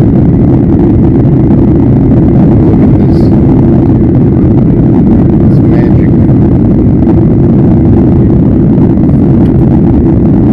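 Steady loud roar of a Boeing airliner's jet engines and rushing air, heard from inside the passenger cabin during the climb after takeoff.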